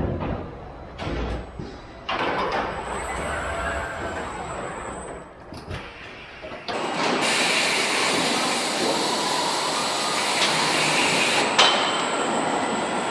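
Engine assembly-line machinery noise: short stretches of mechanical clatter and hum that change abruptly, then from about seven seconds a steady loud rushing, hissing noise, with one sharp metallic clank near the end.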